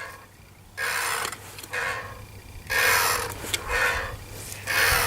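Child's ride-on toy tractor creaking and rasping as it is ridden, in repeated scraping bursts about once a second.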